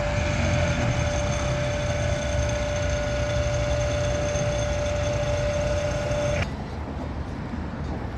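A steady mechanical whine over a low rumble, which cuts off abruptly about six and a half seconds in, leaving only a quieter rumble.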